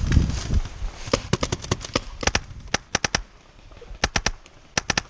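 Paintball marker firing a rapid string of sharp pops in several quick bursts, starting about a second in and running to near the end. A short low rumble comes just before the shots begin.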